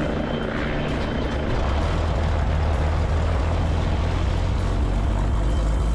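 An Extra 330LX's Lycoming AEIO-580 six-cylinder engine and propeller running steadily, a constant low drone.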